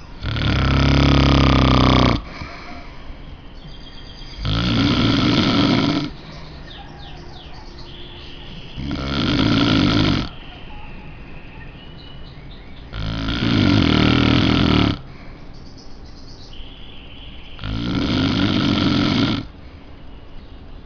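A sleeping man snoring: five long snores, each about two seconds, coming roughly every four to five seconds with breathing pauses between.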